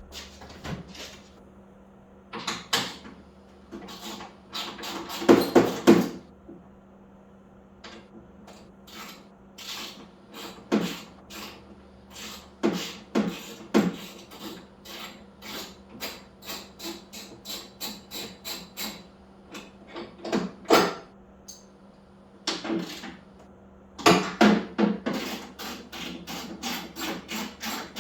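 Metal hand tools and removed hardware being handled in a garage: irregular clicks, knocks and clatter, with a run of even ticks about two a second in the middle and a busier stretch near the end, over a faint steady hum.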